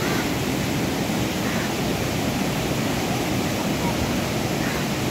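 Whitewater of the Kaveri River rushing steadily over rocks in rapids below the Kallanai Dam.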